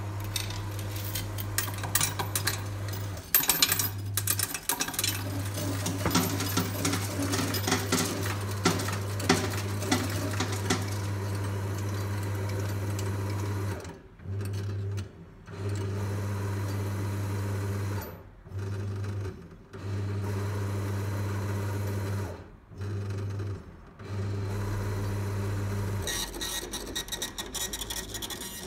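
Reis Eurosystems coin counting machine running: its motor hums steadily while coins clatter through it for the first ten seconds or so. The motor then stops and restarts in several short runs. Near the end the motor stops and the machine's receipt printer ticks rapidly.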